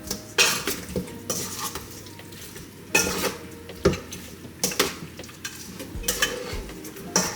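Spoon stirring and scraping in a bowl of raw oxtail being worked together with seasoning, with irregular clinks and clatters about a second apart.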